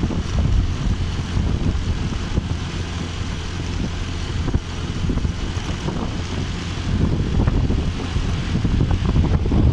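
Wind rushing over the microphone on a moving motorcycle, over a steady low rumble of engine and tyres on the road.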